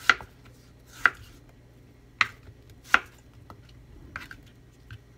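Kitchen knife slicing through peeled squash and striking a wooden cutting board: four sharp chops at roughly one-second intervals, then a few fainter taps.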